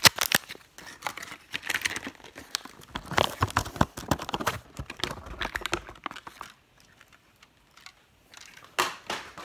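Toy packaging crinkling and rustling as it is handled close to the microphone, a rapid crackle that thins out about six seconds in, followed by a quieter spell and a couple of sharp clicks near the end.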